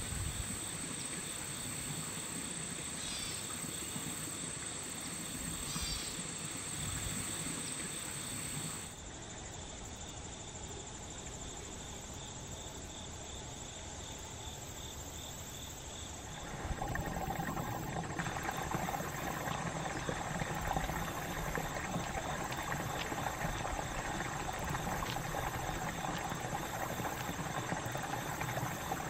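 Insects trilling as one steady high-pitched drone for about the first third. From a little past halfway, tidal water rushing through a culvert: a steady wash that is louder than the insects.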